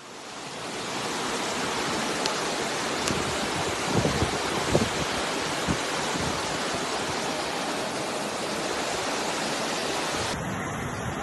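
Muddy floodwater rushing down a street as a fast torrent: a steady, dense rush of water that fades in at the start, with a few low thumps about four seconds in.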